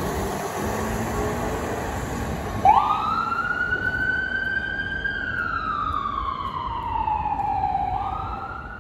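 Ambulance siren switched on about a third of the way in: a sharp upward sweep, then a slow wail that rises, falls over a few seconds and begins rising again near the end. Before it, only traffic and engine noise.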